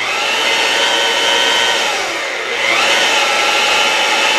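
Milwaukee 4203 magnetic drill's motor switched on and running with a steady whine, on its first test after the control board repair. About two seconds in its pitch dips briefly and then climbs back to full speed.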